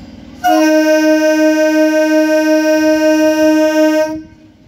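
Electric local train's horn sounding one long steady blast of about three and a half seconds.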